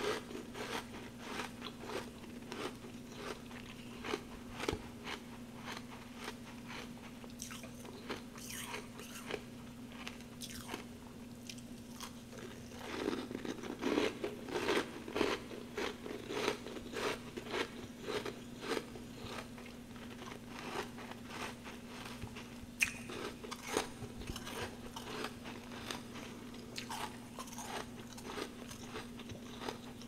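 Close-miked crunching and chewing of frozen frost chunks: a run of crisp, irregular bites, busiest about halfway through, over a steady low hum.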